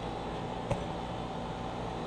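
Steady background hum and hiss with faint even tones, and a single short click a little under a second in.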